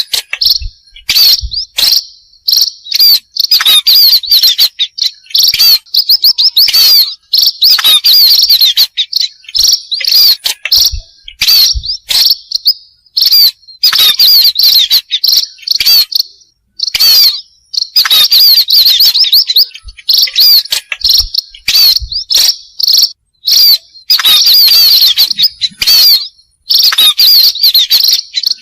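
Munias (burung pipit) chirping and twittering in quick high bursts of a second or two, broken by short gaps, repeating throughout: a lure call (pikat) to draw the birds in.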